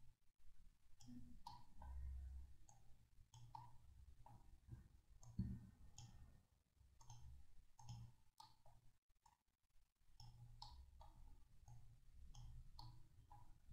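Faint, irregular clicking of a computer mouse and keyboard, more than a dozen short clicks, over a low hum.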